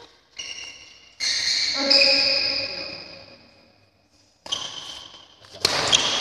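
Several loud shouts during a badminton game, each starting sharply and fading away over a second or two, ringing in the large hall.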